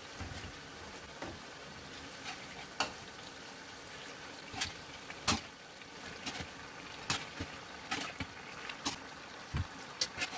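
Okra stew frying in a pot with a steady sizzle, and a spoon knocking against the pot at irregular moments as bitter balls are mashed into it.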